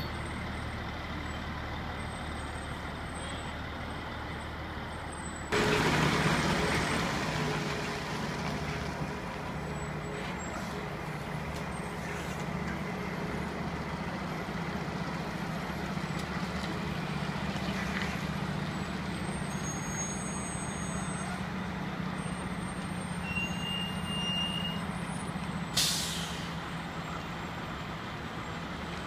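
Diesel engine of a tractor-drawn aerial ladder fire truck idling, then about five seconds in it suddenly gets louder as the truck moves off, and it runs at a steady low drone while the truck turns slowly around the circle. Near the end comes one short, sharp hiss of the air brakes.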